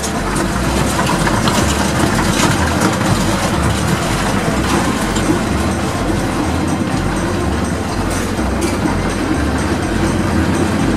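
Old J&E Hall escalator running: a steady mechanical rumble with a low, pulsing throb.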